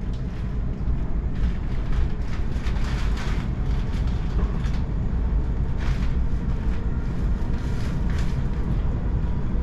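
Sydney Trains electric suburban train running along the track: a steady low rumble with repeated sharp clacks from the wheels over the rails.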